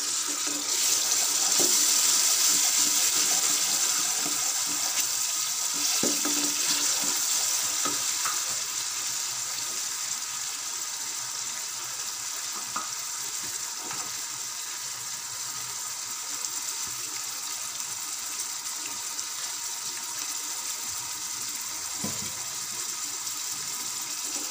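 Chopped tomatoes, green chillies and onions sizzling in hot oil in an aluminium pressure cooker. The sizzle is loudest for the first few seconds after the wet tomatoes go in, then settles to a steady hiss. Now and then a wooden spoon knocks lightly against the pot.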